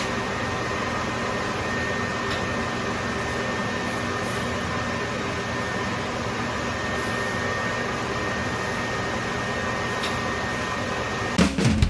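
Steady machine hum and whir of a screen-printing conveyor dryer's fan and motor running, with a faint steady high whine. Drum-heavy music cuts in just before the end.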